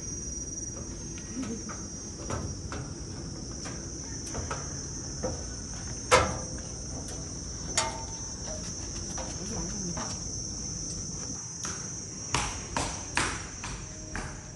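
Insects keep up a steady, high-pitched drone. Scattered sharp knocks and taps break in, the loudest about six seconds in and several close together near the end.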